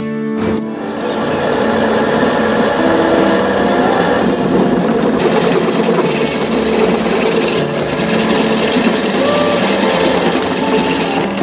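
Old pillar drill press running, its bit drilling into a rusty steel flat bar clamped in a machine vise. A steady motor and cutting noise builds over the first second or so and then holds.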